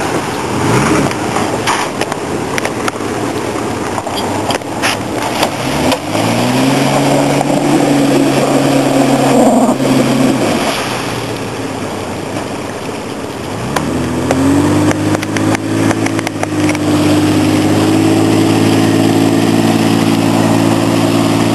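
Ford Explorer's engine revved hard while it ploughs through mud and deep water, with a rush of splashing in the first few seconds. The revs climb and are held high for about four seconds, drop back, then climb again and stay high until they fall away near the end.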